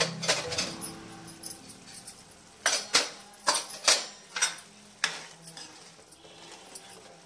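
Kitchen utensils clinking: a quick run of sharp metallic clicks, about eight in two and a half seconds, then a few fainter ones, as of a spoon knocking against pots and spice containers. Background music fades out in the first second.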